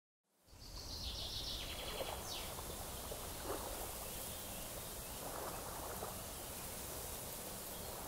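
Outdoor ambience fading in: a steady low rumbling noise with a few faint high chirps in the first couple of seconds.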